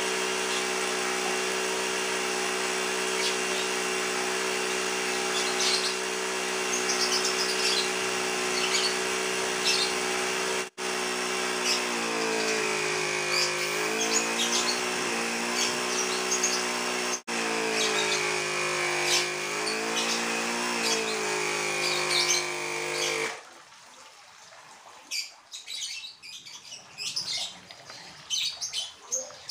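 Cheap 12-volt mini tyre-inflator compressor running steadily as the air supply for an airbrush, its hum wavering in pitch partway through, then switched off. Birds chirp faintly throughout, and small handling clicks follow once the compressor stops.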